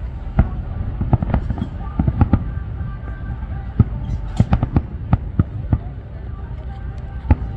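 Aerial firework shells bursting in quick succession: sharp bangs at irregular intervals, sometimes several a second, over a continuous low rumble.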